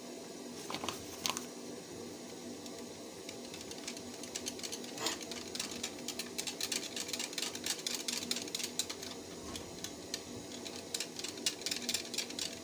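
A broken wire whisk beating porridge in a bowl: a few separate clicks, then from a few seconds in a quick, irregular clicking of the wires against the bowl.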